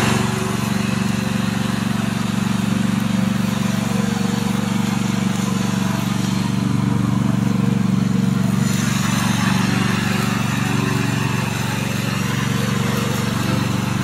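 Gasoline engine of a remote-controlled tracked brush mower running steadily as it mows through tall grass.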